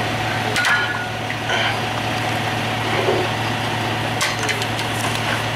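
A heavy diesel truck engine idling with a steady hum, with a few sharp metal clanks as the underlift fork gear is handled.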